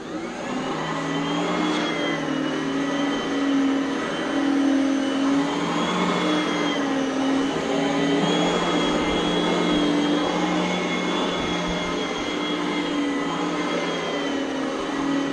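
Oreck Elevate Conquer upright vacuum cleaner switched on at the high carpet setting, spinning up at the start and then running steadily with a whine whose pitch dips and rises slightly as it is pushed over carpet.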